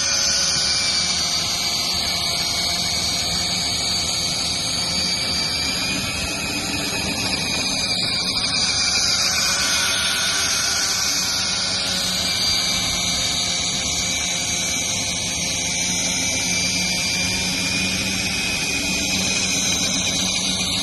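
Motor-driven tube screed running steadily as it is drawn across wet concrete: a continuous power-tool whine with several steady pitches that waver slightly as it works.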